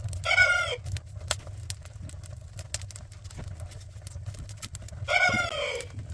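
Kindling and softwood crackling in a freshly lit wood stove, with irregular sharp pops. An animal gives two short calls, one about a second in and one near the end, each falling in pitch as it ends.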